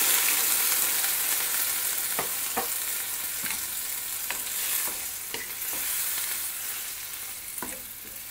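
Water hitting a hot wok of chicken frying in masala, setting off loud sizzling that fades steadily as the pan cools, with a few small clicks and pops through it.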